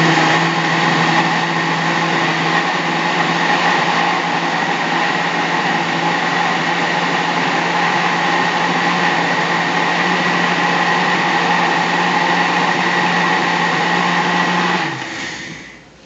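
Countertop blender motor running at a steady speed with a constant hum, blending a liquid pudding mix of condensed milk, cream, milk and gelatin. It is switched off about a second before the end and winds down quickly.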